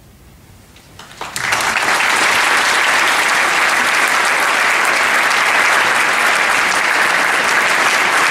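A quiet second, then an audience starts clapping about a second in and keeps up steady applause.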